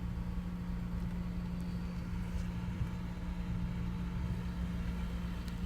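Cabin sound of a car with a seven-speed dry-clutch DSG gearbox: the engine runs with a steady low hum over a low rumble while the brake is held. No distinct clunk or rattle stands out.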